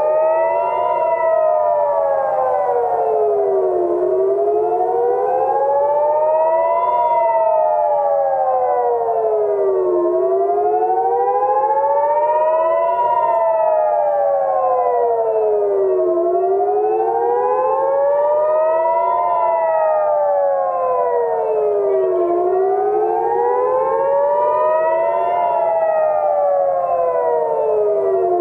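Civil defense air-raid siren wailing, its pitch rising and falling smoothly about every six seconds. It is the rocket-attack warning for an incoming missile barrage.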